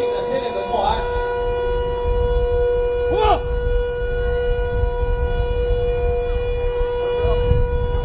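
Civil-defence air-raid siren sounding one steady, unchanging tone, with a short sliding sound about three seconds in.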